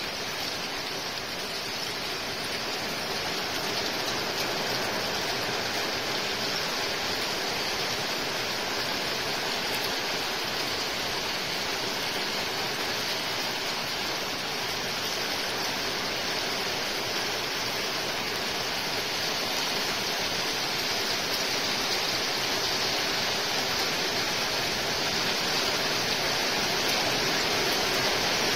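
Steady rain falling, growing a little louder toward the end.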